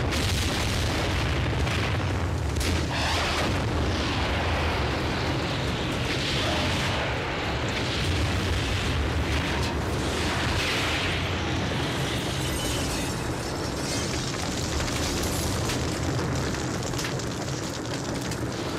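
A large building explosion: several booming blasts over a continuous low rumble.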